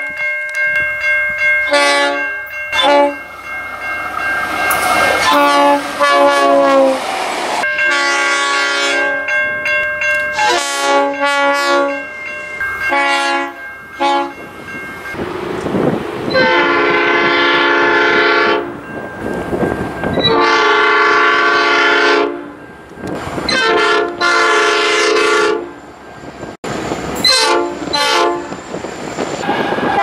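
Diesel locomotive horns sounding a run of multi-note chord blasts, some short and some held for several seconds, from several different trains cut one after another, a few blasts ending abruptly at edits. Train wheel noise on the rails shows between some of the blasts.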